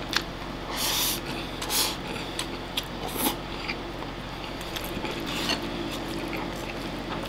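Someone eating a bowl of oyakodon with wooden chopsticks: several breathy slurps as mouthfuls of egg-topped rice are sucked in, chewing, and light clicks of the chopsticks on the bowl. A steady low hum runs underneath.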